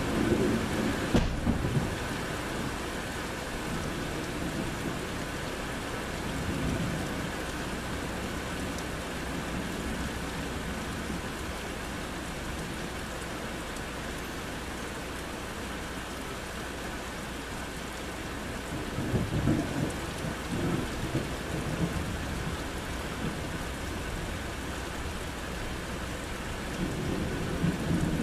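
Thunderstorm: steady rain falling on trees, with rolling thunder. A sharp crack comes about a second in, and the rumbles swell near the start, again about two-thirds of the way through with several loud peaks, and near the end.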